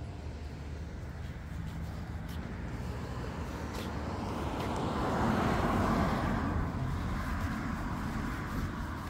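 A car driving past on the street: its tyre and engine noise swells to its loudest a little past the middle and then fades away.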